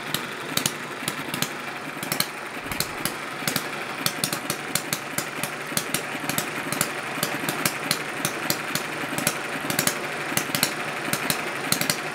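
Small Chinese model hit-and-miss four-stroke petrol engine running on its own. Sharp firing pops come at uneven spacing, a few a second, bunched with gaps where it coasts on its flywheels with the exhaust valve held open, over a steady mechanical whirr. It is running properly on petrol.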